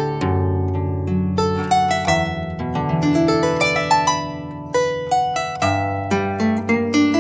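Llanera harp playing a joropo melody: a quick run of plucked notes over held low bass notes.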